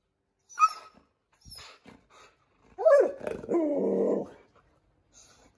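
Siberian husky vocalizing while begging for an egg treat: a sharp high yip about half a second in, then a louder drawn-out call that falls in pitch and is held for about a second and a half, typical husky 'talking'.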